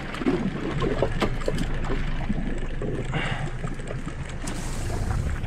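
Steady wind and water noise around a small boat drifting on the open sea, with scattered knocks and taps, most of them in the first second or so.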